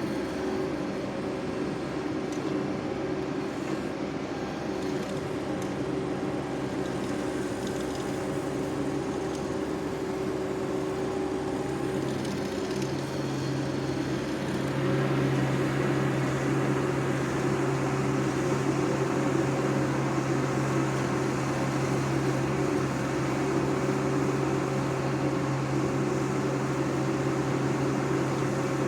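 An engine running steadily with a constant hum. About halfway through its note rises and it grows louder, as if throttling up.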